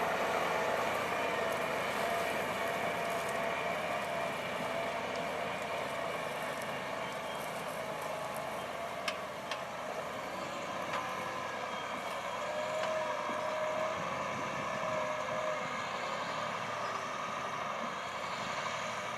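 John Deere 8335R tractor's six-cylinder diesel engine running steadily while pulling a nine-furrow plough. Two brief clicks come about halfway through.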